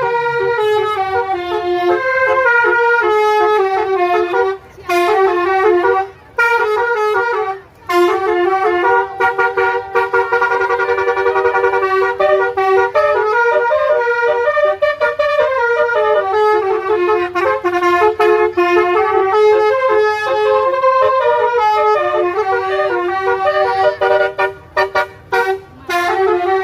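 Telolet horn, a set of musical multi-tone horns, playing melodies in quick stepped notes. It breaks off briefly a few times early on and ends in rapid short stabs.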